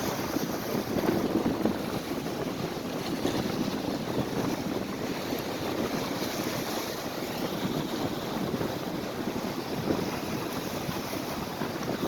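Strong wind buffeting the microphone over the steady rush of big waves breaking on a lake shore, the noise swelling and easing in slow surges.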